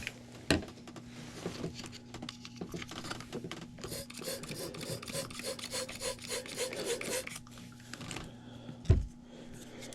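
Hands working a PVC condensate drain fitting loose, plastic rasping and rubbing, with a quick even scraping rhythm in the middle and a thump near the end. A steady low electrical hum runs underneath.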